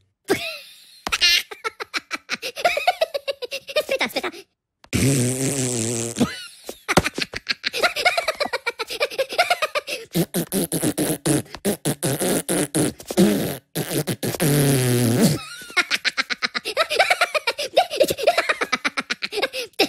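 Cartoon Minion voices blowing fast, fart-like raspberries with the lips, mimicking motorcycle engines, broken up by giggling and laughter. Longer pitched vocal stretches come about five seconds in and again near fifteen seconds.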